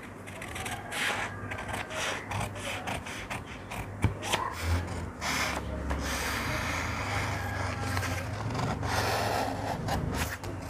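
Scissors cutting through a large sheet of paper along a drawn waistcoat pattern, the paper rustling and crackling as it is cut and smoothed flat by hand, with a sharp click about four seconds in.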